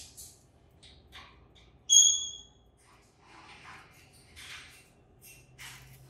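Cockatiel bathing in a small steel water dish, wings flapping and water splashing in short bursts. About two seconds in, a single short, high whistled chirp, the loudest sound.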